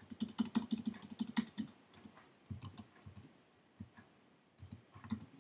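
Typing on a computer keyboard: a quick run of keystrokes for the first second and a half or so, then slower, scattered key presses.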